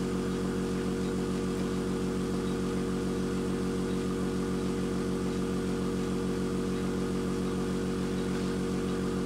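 Small air compressor running with a steady hum and a fast, even pulse, supplying air to a UGears wooden pneumatic engine kit.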